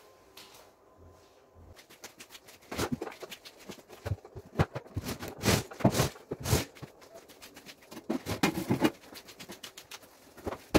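A fast, dense run of knocks, clicks and scrapes from objects being picked up and moved about while a room is cleared, crowded together from about two seconds in to about nine seconds in, with one sharp knock at the very end.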